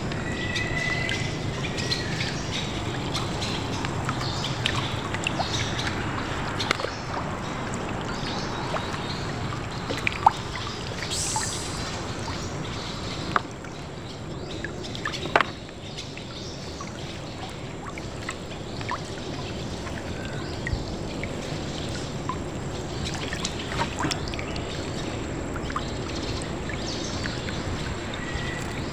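Water trickling and dripping as a gill net is worked along its float line from a small wooden boat, with scattered light clicks and a few sharper knocks about ten and fifteen seconds in. A bird calls briefly near the start.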